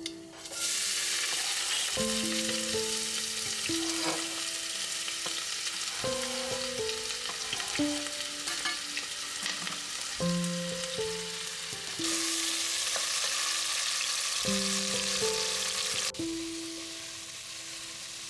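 Steady sizzling hiss of food cooking on a gas stove, louder for a few seconds near the middle and dropping off near the end, under soft background music.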